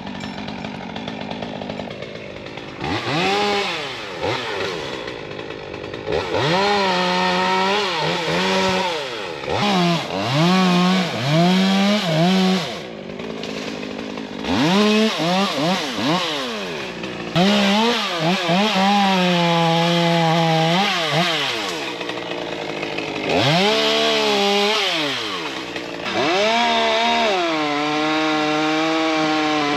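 Two-stroke chainsaw cutting wood, revved up to full throttle and held for two to four seconds at a time, then dropping back toward idle between cuts, about seven times over.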